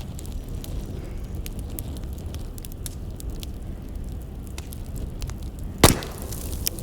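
Wood fire crackling, with a low steady rumble of flames and scattered small snaps, and one loud sharp pop about six seconds in.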